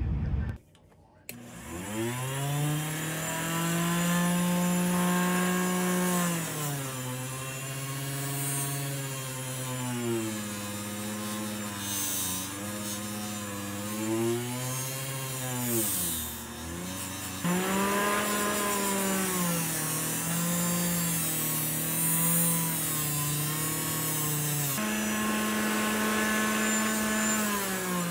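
Bench grinder motor starting up about a second in, with its pitch climbing, then running with a knife blade worked against its fiber or wire wheel to clean rust and patina off the old steel. The pitch sinks and rises several times, drops low just past the halfway point, then picks up again.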